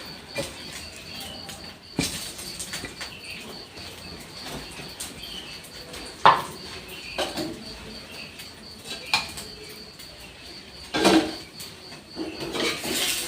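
Kitchen utensils and dishware clinking and knocking: a series of separate sharp knocks a second or two apart, the loudest about six and eleven seconds in.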